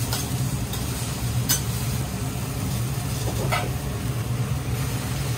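Okonomiyaki sizzling on a steel teppan griddle under a steady low hum. Metal spatulas click and scrape against the griddle a few times, most sharply about one and a half and three and a half seconds in.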